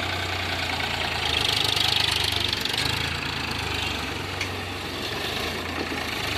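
Farmtrac 60 tractor's diesel engine running at a low, steady speed as the tractor drives past on a test run after a brake job.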